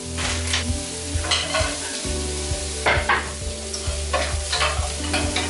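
Vegetables sizzling in a non-stick frying pan with no oil, being stirred, with a utensil scraping across the pan in irregular strokes about once a second.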